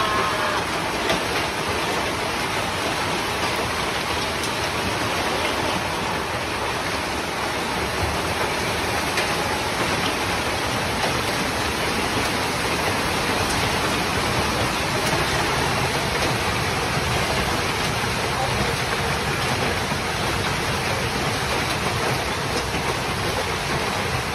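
Heavy rain pouring down in a storm, a steady rush of noise that holds at the same level throughout.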